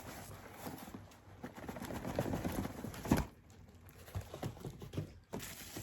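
Cardboard and bubble wrap rustling and crinkling as a shipping box is unpacked, with scattered clicks and a sharp snap about three seconds in.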